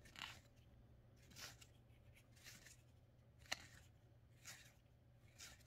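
Near silence with faint rustles of game cards sliding against each other as they are leafed through in the hand, and one sharper click about three and a half seconds in.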